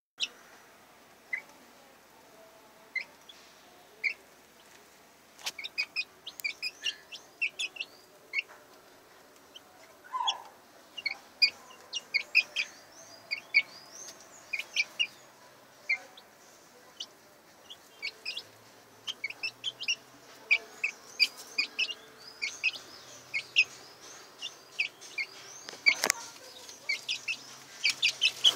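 Young chicks peeping: many short, high cheeps, sparse at first and coming thick and fast in the second half. A single sharp knock sounds near the end.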